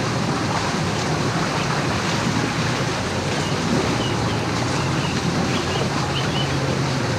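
Off-road vehicle wading through deep floodwater: a steady rush and slosh of churned water, with a low engine hum beneath.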